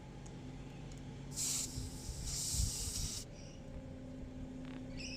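Air hissing from a tire's valve stem as a screw-on external tire-pressure sensor is threaded on and depresses the valve core: two short hisses, the second longer, before the sensor seals.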